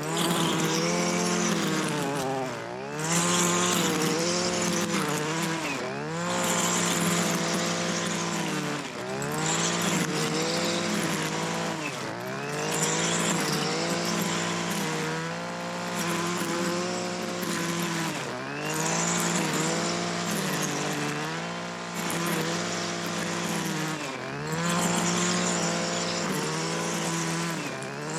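Small gasoline engine of lawn-care equipment running at high speed, its pitch sagging and recovering every two to three seconds as load or throttle changes.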